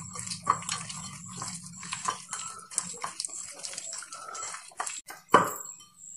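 A hand squishing and rubbing raw prawns in a wet spice marinade in a bowl: irregular soft squelches and clicks. A louder knock comes about five seconds in.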